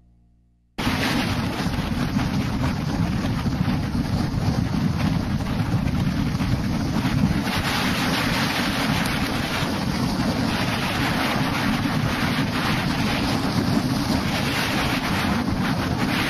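Wind rushing over the microphone of a leg-mounted camera together with the roll of skateboard wheels on asphalt at downhill speed. It cuts in abruptly less than a second in and stays loud and steady.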